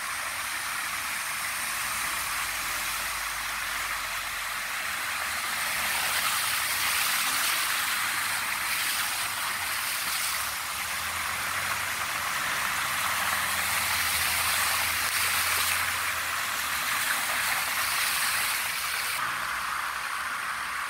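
Steady hiss of rain and water running over a flooded street, with a car driving slowly through the water, its low engine hum heard around the middle.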